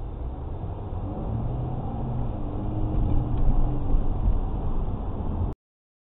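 Car engine and road noise heard from inside the car, a low rumble that grows louder as the car gets moving, then cuts off suddenly near the end.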